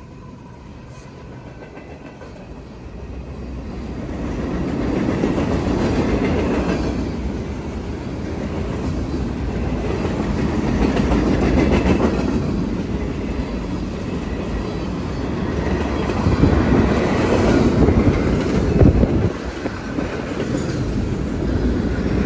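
Train passing close by on the tracks: a steady rumble of wheels on rail with clickety-clack, building about three seconds in, then swelling and easing as the cars roll past.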